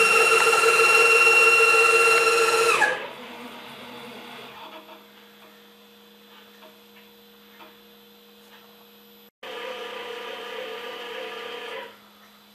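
CNC router's axis stepper motors whining during rapid moves, with many steady tones, dropping quickly in pitch and stopping about three seconds in. Faint ticks follow. A second shorter move from about the two-thirds mark stops abruptly near the end.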